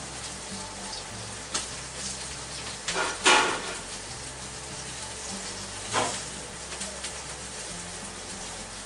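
Sous-vide pork steaks searing in a very hot wok: a steady sizzle with a few short louder bursts, the loudest about three seconds in.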